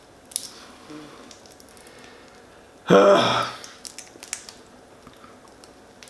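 Boiled crawfish shells being cracked and peeled by hand, a scatter of small sharp cracks and snaps. About three seconds in, the eater makes one short, loud voiced sound, like a hum or a brief word.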